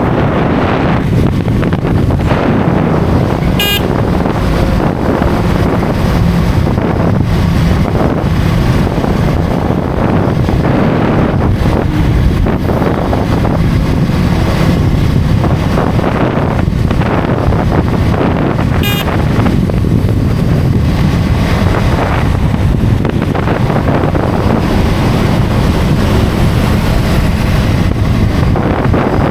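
Motorcycle riding at highway speed: heavy wind buffeting the microphone over engine and road noise. There is a brief high-pitched blip about four seconds in and another about nineteen seconds in.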